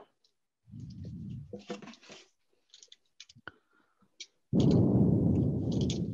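Low, scraping rubbing noise close to a microphone, like hands or material brushing against it. A softer stretch comes about a second in, then scattered small clicks, then a much louder rubbing rumble near the end.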